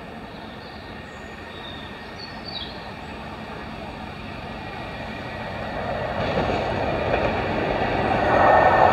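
Class 47 diesel locomotive approaching, its engine and wheels growing steadily louder, much more so from about six seconds in. A few faint high chirps sound early on.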